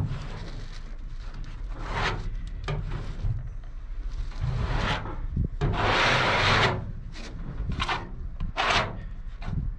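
Hand-sanding a polyester body-filler patch on a Mercedes truck cab panel with a sandpaper-wrapped wooden block: a handful of irregular rasping strokes, the longest and loudest about six seconds in.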